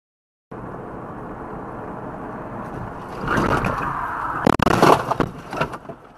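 In-car dash-cam audio of a car braking hard. Steady road and engine noise grows into a louder skidding rush about three seconds in, then a loud bang followed by several sharp knocks and rattles about a second and a half later.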